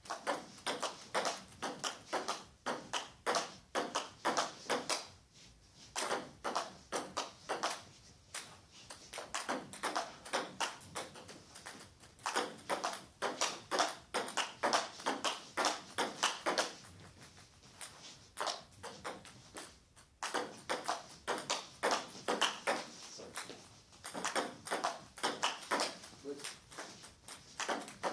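Table tennis ball clicking back and forth between bats and table in quick rallies, several hits a second, with a short pause about five seconds in and a longer one about two-thirds of the way through.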